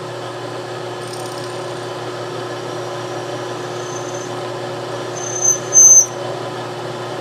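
Small milling machine spindle running steadily while a small drill bit bores into a brass plate. A few short high-pitched squeals come from the bit cutting the brass in the second half, the last one the loudest.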